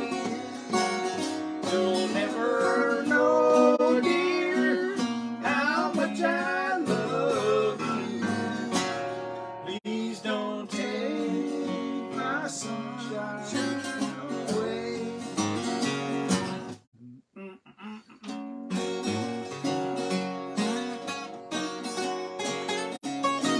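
Two acoustic guitars strummed and picked together, with a man singing over them in the first part. About 17 seconds in, the music stops for about a second and a half, then the guitars start up again.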